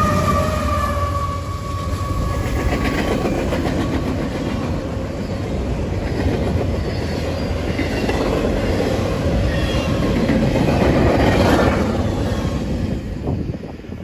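Double-stack container freight train passing close by. At the start a mid-train Canadian Pacific diesel locomotive goes past with a steady whine that sinks slightly in pitch, then the container cars clatter and rumble along the rails. The noise fades near the end as the last cars pass.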